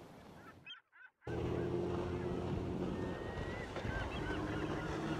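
Wind and water noise, then, after a brief break about a second in, a steady low motorboat engine hum with birds calling over it in short repeated chirps and one longer whistled call.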